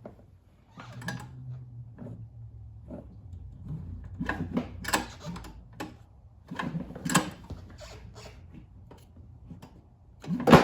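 Irregular clicks, taps and knocks of tools and small parts being handled, with a sharper knock near the end, over a low steady hum.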